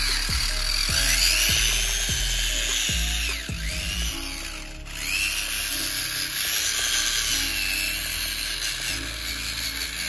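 The whine of a homemade remote-control model tractor's small electric motor, rising and falling in pitch as it drives, over background music.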